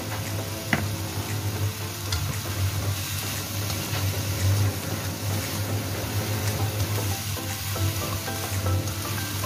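Broccoli florets sizzling and stir-frying in a nonstick wok over a gas flame, with a slotted spatula stirring and tossing them around the pan.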